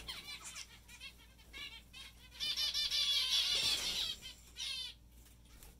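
A flock of zebra finches calling in an aviary: many short, nasal, repeated calls overlapping, swelling into a dense, louder chorus from about two and a half to four seconds in.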